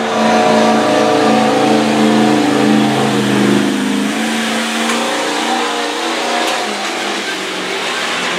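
Diesel engine of a Ford Super Duty flatbed pickup running at full throttle under heavy load as it drags a weight-transfer pulling sled. Its steady note drops and weakens about three and a half seconds in.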